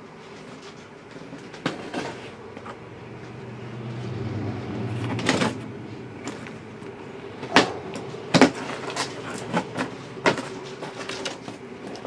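Handling and opening of a large cardboard box: scattered knocks, clicks and scraping of cardboard, with a longer scrape about five seconds in and the loudest knocks around eight seconds.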